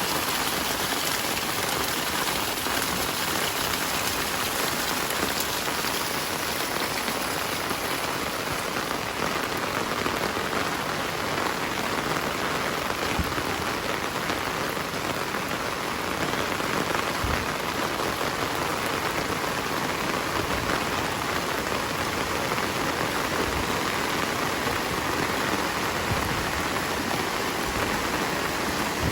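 Heavy rain falling steadily, a dense even hiss of drops hitting surfaces all around.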